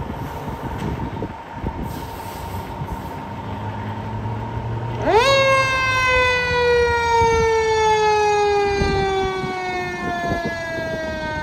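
A fire truck's mechanical Q siren winds up sharply about five seconds in, then coasts slowly down in pitch, over the low rumble of the truck's engine.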